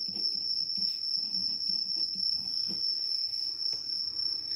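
A cricket's steady high-pitched trill, with faint scratching of a pen writing on paper.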